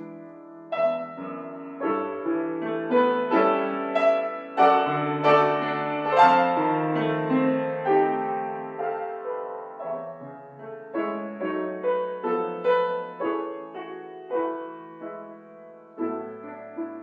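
Background piano music: a slow, gentle piece of single notes and chords, struck about once a second and left to ring.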